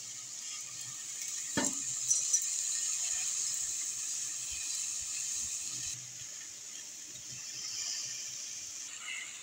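Sugar and dry spices tipped into a steel pot of raw mango pieces on the stove: a steady hiss of pouring. There is one knock about a second and a half in, then a few light clinks, and the hiss dies down about six seconds in.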